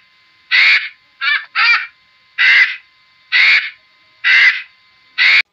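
Steller's sea eagle calling: seven short, harsh, barking calls about a second apart, two of them in quick succession about a second in.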